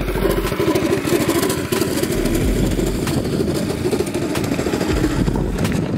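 Go kart's Predator 212cc single-cylinder OHV four-stroke engine running steadily as the kart drives along the street.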